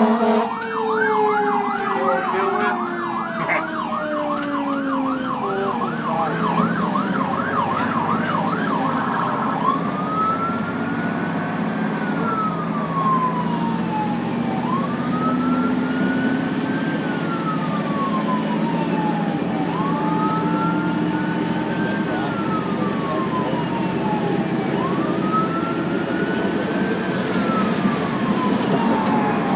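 Fire engine siren heard from inside the cab over the rumble of the engine and road. It sounds a fast yelp for about the first nine seconds, with a lower tone gliding down underneath in the first few seconds, then switches to a slow wail that rises and falls about every five seconds.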